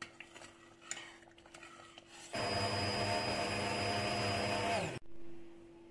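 Hand-held immersion blender running in a pot of cooked red lentil soup, puréeing it: a loud steady motor whine with churning for about two and a half seconds, starting a little past two seconds in and cutting off just before the end, its pitch sagging slightly as it stops. A few light clicks and knocks come before it.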